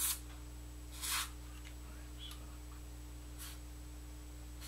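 Aerosol cleaner spray hissing in three short bursts onto the Aiwa CS-230U boombox's faulty part, cleaning it to cure the scratchy sound. The burst about a second in is the longest and the last one is fainter.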